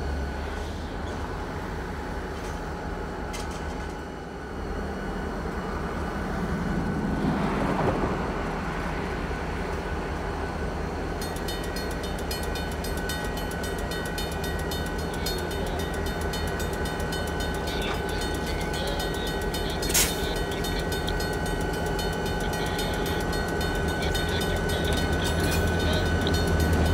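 EMD GP40-series diesel locomotives rumbling steadily as a freight train moves slowly closer, growing louder near the end. A single sharp click comes about twenty seconds in.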